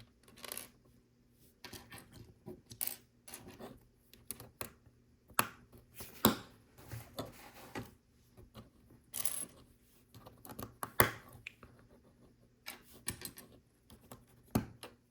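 Plastic Lego bricks clicking and clattering as pieces are handled and pressed together, with irregular sharp clicks and a few short rustles of pieces being picked through.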